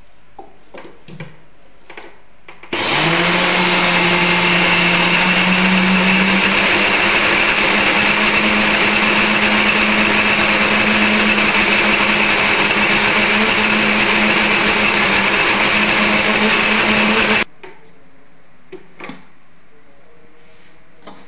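Electric mixer-grinder with a stainless-steel jar grinding soaked rice and dal into a fine dosa batter. It starts about three seconds in with a steady whine that rises slightly in pitch over the first few seconds, runs for about fifteen seconds and cuts off suddenly. A few clicks and clinks of the jar being fitted and lifted off come before and after.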